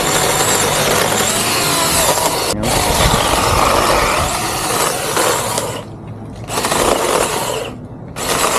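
Gardtech 6-inch electric mini chainsaw running and cutting through fallen tree branches. It cuts out for a moment about two and a half seconds in, stops at about six seconds, then runs again in two short bursts.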